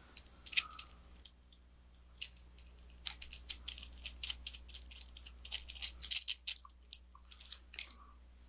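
Small metal parts clicking and clinking in the hands as a V-band clamp and its flange hardware are worked apart. A few scattered clicks come first, then a quick run of clinks from about two seconds in until near the end.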